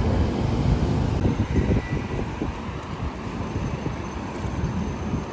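Street traffic noise with wind buffeting the microphone, a gusty low rumble that eases after about a second.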